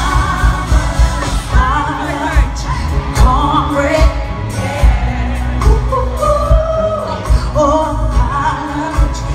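Loud live concert music: singing over a band with heavy bass and drums.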